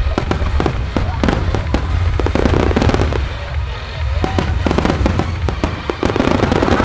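A dense fireworks barrage: many shells bursting and crackling in rapid, overlapping bangs, with a deep rumble under them. The bangs ease briefly about three to four seconds in, then pick up again. Music plays along behind them.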